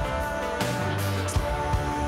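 Background pop music: guitar and bass over a steady drum beat, no singing.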